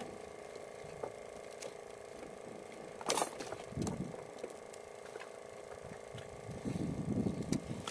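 Steady hum of a boat engine running, with a single sharp knock about three seconds in and some low rumbling near the end.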